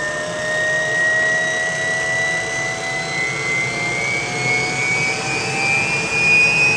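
UH-1 Huey's Lycoming T53 turboshaft engine spooling up during start: a steady rushing turbine noise with a high whine that climbs slowly and evenly in pitch as the engine accelerates.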